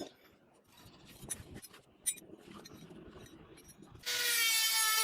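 Faint scraping and rubbing of hand work with a few light clicks, then a small power tool starts abruptly about four seconds in and runs with a loud, steady whine.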